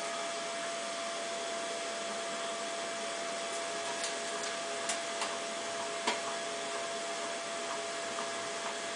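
CNC milling machine running: a steady whir with one constant hum-like tone, broken by a few sharp ticks, the loudest about six seconds in.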